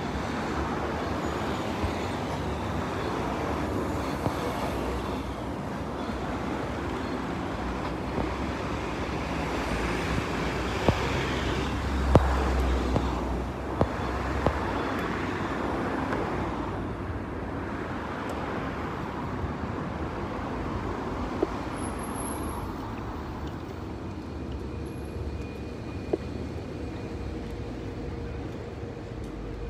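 City street traffic noise: a steady wash of passing cars, swelling as a heavier vehicle passes mid-way with a low rumble, and a few sharp clicks scattered through it.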